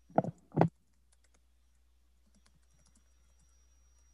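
Two short vocal sounds right at the start, then faint, irregular clicking of a computer keyboard being typed on.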